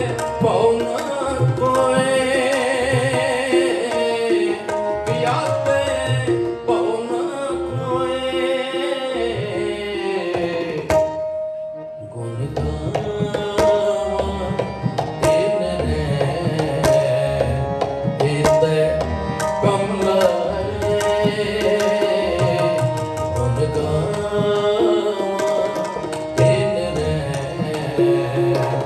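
Sikh shabad kirtan: two male voices singing a devotional hymn to harmonium accompaniment, with a tabla keeping the rhythm. About eleven seconds in, the voices and drum stop for a moment, leaving a single held note, and then the music resumes.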